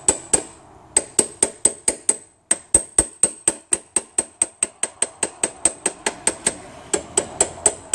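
Rapid light hammer taps, metal on metal with a short bright ring, about five a second, driving the output flange onto the tail shaft of a 5L40E automatic transmission past its O-ring. The tapping pauses briefly near the start and again about two and a half seconds in.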